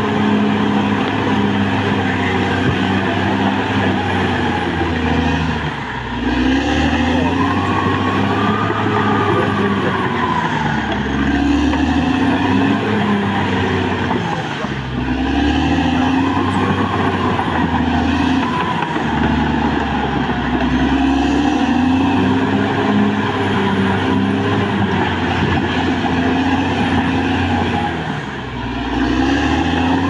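Caterpillar D6R XL bulldozer's diesel engine running hard under load, with a whine that rises and falls in slow swells every few seconds as the machine pushes and eases off.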